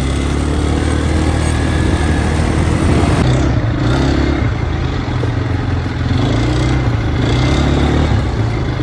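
ATV engine running while being ridden, its pitch rising and falling a little with the throttle.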